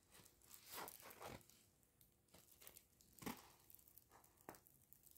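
Faint rustling and crinkling of a diamond painting canvas and its plastic cover film being handled, in a few short rustles.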